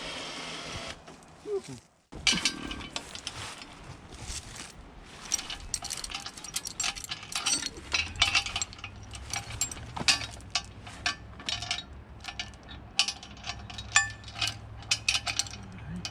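Many quick, irregular metallic clinks and clicks of chain and ratcheting hardware being worked as a log is rigged to a log arch, with a low steady hum underneath from about halfway.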